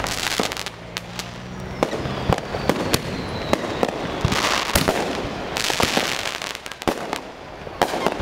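Aerial fireworks going off: sharp bangs and pops at irregular intervals, with spells of crackling hiss about halfway through and again a little later.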